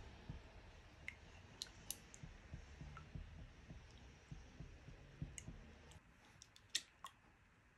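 Spatula stirring and beating eggs in a glass bowl: faint scraping with light, irregular clicks and taps of the spatula against the glass. The stirring stops about three-quarters of the way through, followed by a couple of sharper taps.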